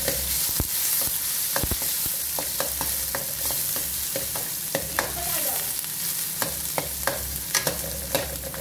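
Chopped onions sizzling in hot oil in a metal wok, stirred with a slotted metal spoon that clicks and scrapes against the pan again and again.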